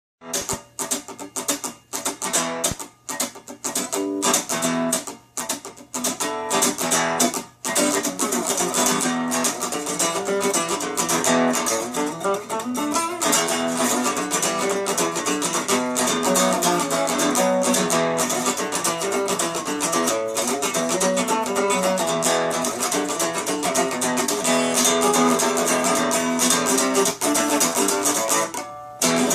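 A guitar being played. For the first several seconds it gives separate strums with short pauses between them, then plays continuously from about eight seconds in, with one brief break near the end.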